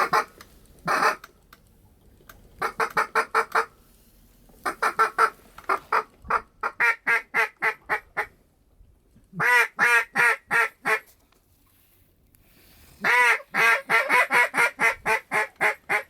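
Mallard-style quacking in runs of evenly spaced notes, about five or six a second, each run tapering off. There are two single quacks at the start, then four longer runs separated by short pauses.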